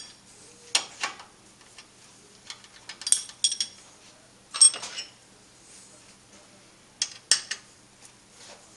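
Metal-on-metal clinks from hands handling parts and tools on a metal lathe. Sharp clinks come in a few small clusters, with quiet stretches between.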